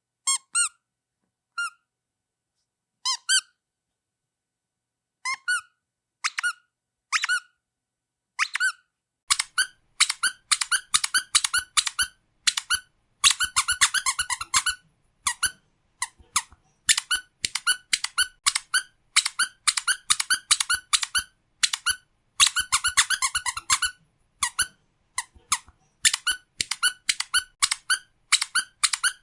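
Rubber duck squeak toy squeaking. At first there are single squeaks with pauses between them, then from about nine seconds in come rapid runs of several squeaks a second.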